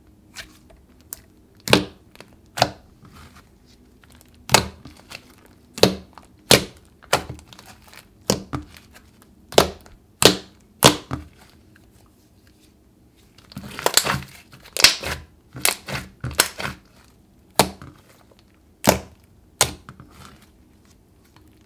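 Fingers poking and squeezing a thick, creamy slime, giving short, sharp pops and squelches at an irregular pace, with a quicker run of them a little past the middle.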